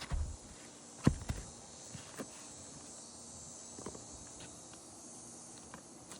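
Scattered sharp knocks and taps on an asphalt shingle roof, the loudest about a second in, followed by a few fainter ones, from work removing shingles and nails.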